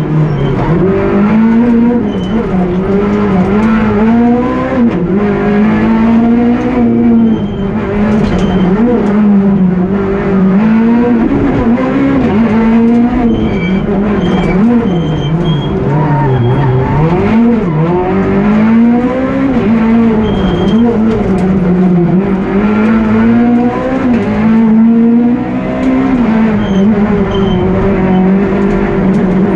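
Peugeot 208 R2 rally car's 1.6-litre four-cylinder engine at full stage pace, heard from inside the cabin: the loud engine note climbs through the gears and drops back sharply on lifts and downshifts, over and over, with some tyre noise underneath.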